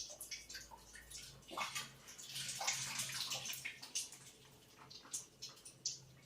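Water running and splashing unevenly out of an RO water purifier's sediment filter outlet into a container, as the filter's output flow is checked. A faint steady low hum sits under it from about a second and a half in.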